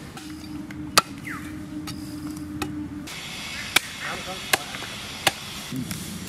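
Curved hand chopper hacking goat head and meat on a log: sharp single chops, one about a second in, then three more a little under a second apart in the second half.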